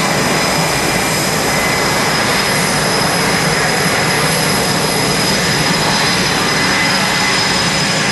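Military jet engine running, a loud steady rush with high whining tones that holds level throughout.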